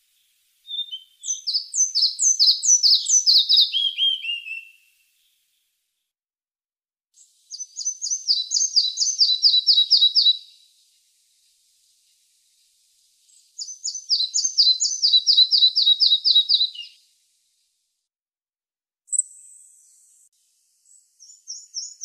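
Red-breasted flycatcher singing: three phrases of quick repeated high notes, each about three seconds long and dropping lower toward the end, with pauses of a few seconds between them. Near the end comes one short high whistle, then the next phrase begins.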